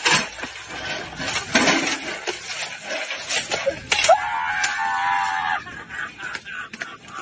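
A scuffle at a metal patio table: knocks and clattering of chairs and table. About four seconds in, one shrill, drawn-out cry lasts about a second and a half.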